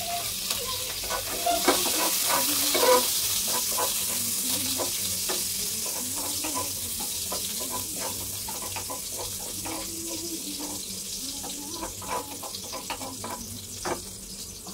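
Onion and garlic sizzling in hot oil in a ceramic-coated pan, with a wooden spatula tapping and scraping the pan as it stirs. The sizzle is loudest in the first few seconds and eases off.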